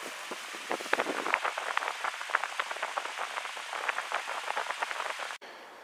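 Senville mini-split outdoor condenser unit running, its fan giving a steady airy hiss, overlaid by many irregular sharp clicks and crackles. The sound cuts off abruptly near the end, leaving faint room tone.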